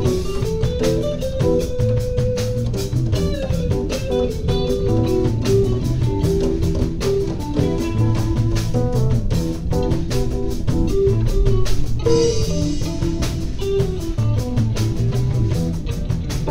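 Background music: a guitar-led instrumental over bass guitar and drums, with a steady beat.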